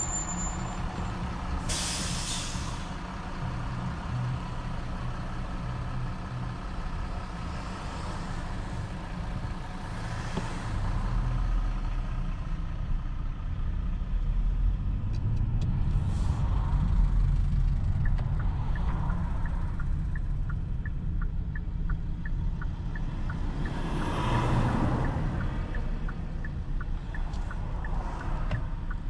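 A Kia K8 sedan with a 2.5-litre four-cylinder petrol engine driving in city traffic: a steady low engine and tyre rumble that grows louder for several seconds past the middle. A few brief rushing hisses come and go, and a regular ticking, about three a second, runs for several seconds past the middle.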